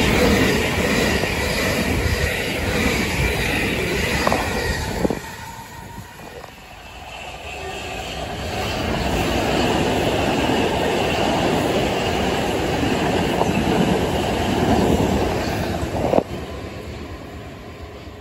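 Southern Class 377 Electrostar electric multiple units running past, one after another. The first train passes close with loud wheel rumble and rattle that cuts off about five seconds in. After a short lull a second train swells up and runs past steadily, then drops away about two seconds before the end.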